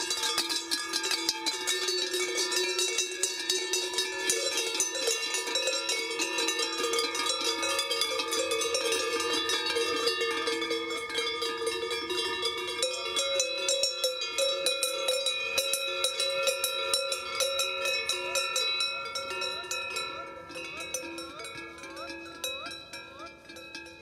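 Several cowbells on walking cows clanging continuously and overlapping in an uneven jangle, fading somewhat over the last few seconds.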